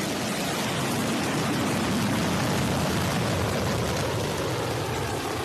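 New Shepard's single BE-3PM hydrogen-fuelled rocket engine at liftoff: a steady rushing noise with heavy low end, easing off slightly near the end as the rocket climbs away.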